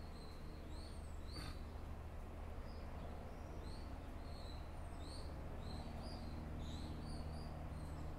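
Small birds chirping with short, repeated notes, a couple each second, over a steady low background hum. A single click comes about a second and a half in.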